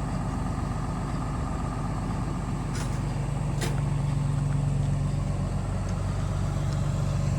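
Box truck's engine idling steadily, its low hum growing a little stronger about halfway through, with two light clicks a second apart near the middle.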